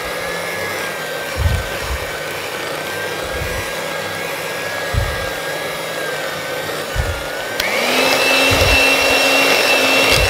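Electric hand mixer running, its beaters whisking an egg and flour into a creamed butter-and-sugar cake mixture in a glass bowl, with occasional low thuds. About seven and a half seconds in, the motor's whine steps up suddenly to a higher pitch and runs on steadily.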